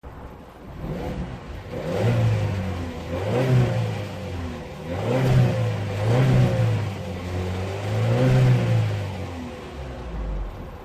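Skoda Octavia A7's 1.2 TSI turbocharged four-cylinder petrol engine revved up and down about five times, its pitch rising and falling with each rev. The engine is being recorded for a knock and clatter that the owner says comes with hesitation under load.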